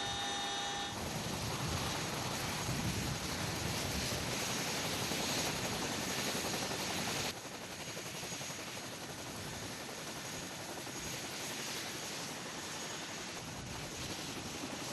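Helicopter running with a steady, dense engine and rotor noise. A high turbine whine is heard in the first second. The noise drops abruptly to a lower level about halfway through.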